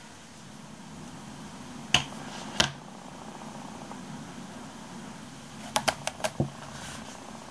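Light taps and clicks of a spiral-bound notebook being set down and handled on a tabletop: two sharp clicks about two seconds in, then a quick run of five or so near the end, over a steady low room hum.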